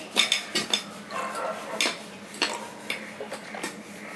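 Eating by hand from a stainless steel plate: fingers working food against the metal, with a scatter of short clicks and light clinks.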